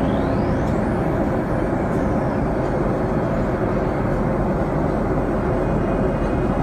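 Steady rush of engine and airflow noise inside the cabin of a commercial airliner in flight.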